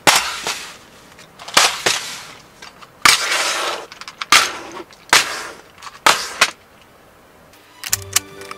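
Trays of loose Lego pieces being set down on a table one after another: a series of sharp knocks, each followed by a brief rattle of the bricks inside, one of them a longer shuffle of pieces. Music with a ticking beat starts near the end.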